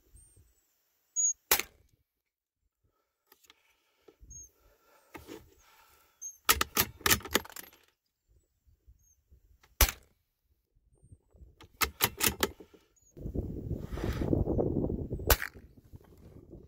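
Rifle shots at gophers heard from the scope-mounted camera: single sharp cracks about a second and a half in, near ten seconds and a second before the end, with quick runs of sharper clicks between them. A rushing noise builds just before the last shot.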